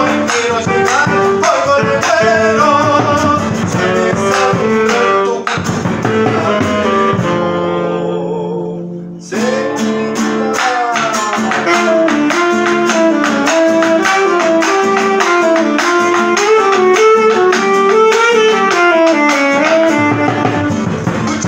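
Argentine folk gato played on acoustic guitar, bombo legüero and tenor saxophone, with steady bombo strokes under a melodic line. About seven seconds in the drum stops and a chord is held for a couple of seconds, then the whole band comes back in.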